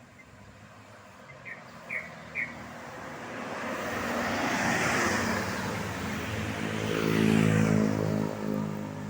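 Roadside traffic: three short high chirps, then a vehicle rushes past about five seconds in. After that a heavy vehicle's engine draws close with a steady low drone and is loudest near the end.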